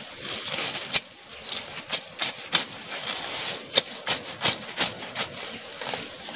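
Grass being cut and pulled by hand close to the ground: irregular sharp snaps of stems, with the rustle of leaves.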